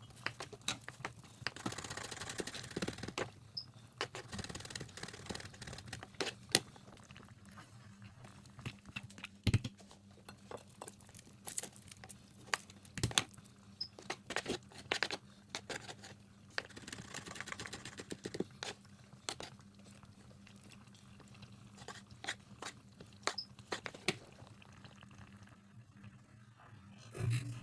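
Kitchen food-preparation sounds: scattered knocks and clicks of utensils and ingredients being handled, with a couple of short stretches of rustling, over a low steady hum.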